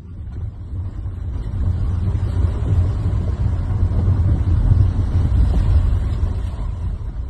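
Vehicle driving on a rough mountain road: a steady, loud low rumble of engine and road noise that fades in at the start.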